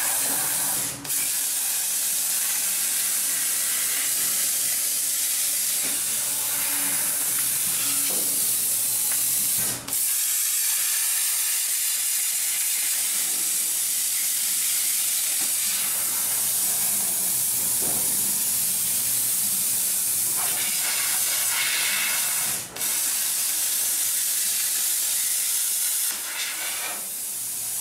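Hypertherm Powermax45 plasma torch cutting through a car's steel quarter-panel sheet metal: a steady, loud hiss of air and arc. It drops out for a moment three times as the arc breaks and restarts.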